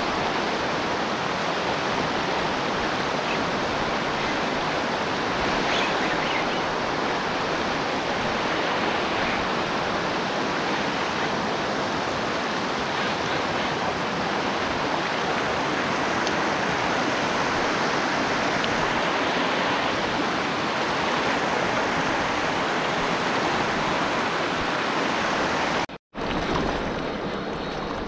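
Rushing water of a small mountain-river rapid: a steady, even rush. It cuts out abruptly about two seconds before the end, and a quieter rush follows.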